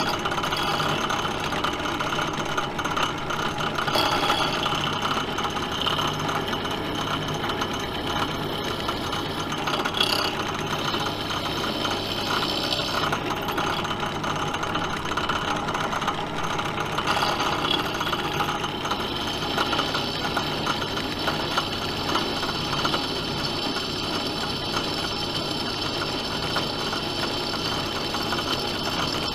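Bench drill press running steadily, its motor giving a constant hum with a rattling, vibrating cut as the bit works into a steel part.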